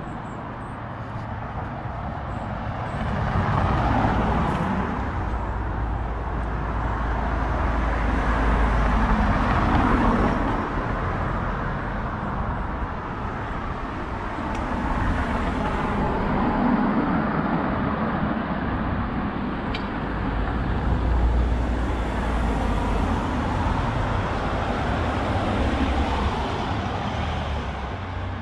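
Road traffic close by: several cars pass in turn, their tyre and engine noise swelling and fading about five times.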